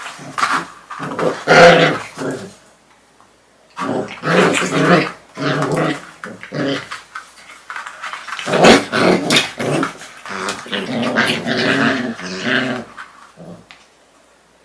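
Puppies growling while play-fighting, in three bouts of a few seconds each with short pauses between; the growling stops about a second before the end.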